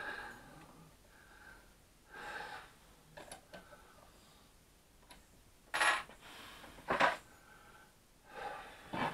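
Light metallic clicks and clinks from hand-tightening the chuck of a mini bench drill press on a small flap-wheel shank. There are several short sounds, the two loudest about six and seven seconds in.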